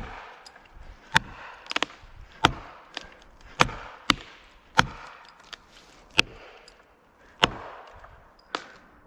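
Felling wedges in a cedar's back cut being driven with about ten sharp, uneven blows, including a quick triple early on. The two wedges are worked in turn to lift and tip the tree evenly onto its hinge.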